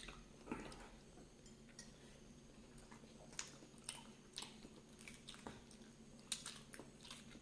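Faint chewing of a person eating pasta and chillies, with scattered soft clicks.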